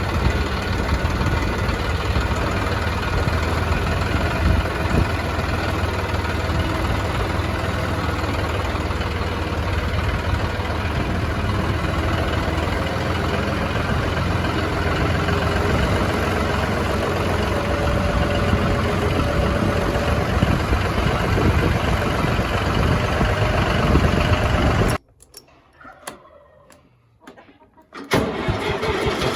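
Engine running steadily, then cutting out abruptly to near silence about 25 seconds in for roughly three seconds before it comes back.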